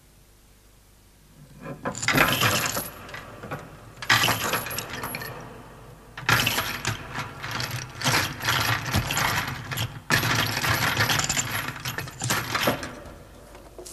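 Loud metallic jangling and clinking in four long bursts after about a second and a half of quiet, dying away near the end.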